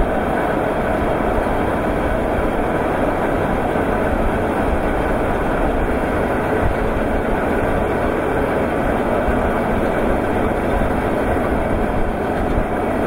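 Steady, even mechanical rumble of a rail-mounted bucket-wheel stacker-reclaimer and its conveyor running.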